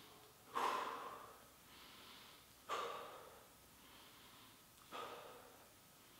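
A man breathing close to the microphone, three sharp exhales about two seconds apart, each followed by a softer inhale. The breaths are paced with slow shoulder raises and drops.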